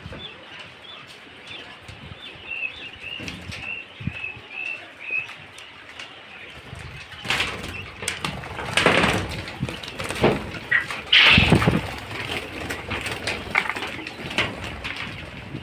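A flock of quail crowded in a floor pen: short high peeping calls repeat for the first few seconds, then about seven seconds in a loud flurry of wing-flapping breaks out as the birds scatter, peaking twice before settling back to scattered flaps and calls.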